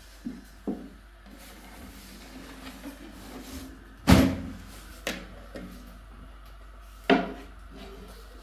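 A few separate knocks and thumps of objects being handled or set down, the loudest about four seconds in and another strong one about seven seconds in.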